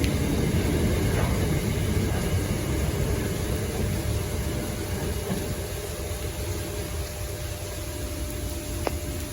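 Freight train rumbling past, its low rumble slowly fading as it moves away.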